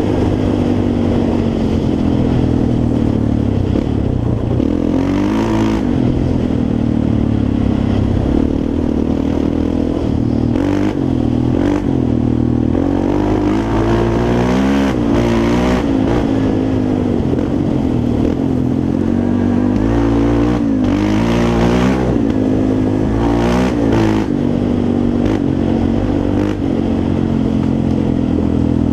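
Yamaha Raptor 350 quad's single-cylinder four-stroke engine running while riding, its pitch rising and falling several times as the throttle is opened and closed.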